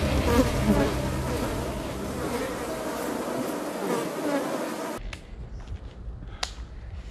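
Flying insects buzzing loudly, cutting off abruptly about five seconds in. A quieter background follows, with one sharp click.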